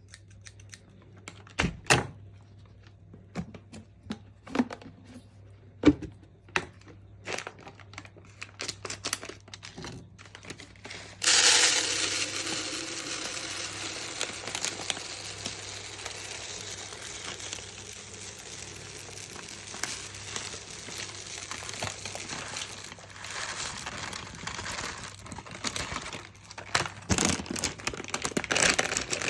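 Containers and packaging handled while restocking a fridge: separate clicks, knocks and crinkling. About eleven seconds in, a steady rushing hiss starts abruptly and carries on under further crinkles and knocks.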